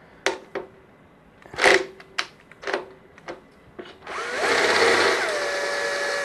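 Cordless drill-driver with a socket unscrewing a bolt: a few clicks as the socket is fitted, then about four seconds in the motor spins up, rising in pitch, runs steadily and steps down in pitch.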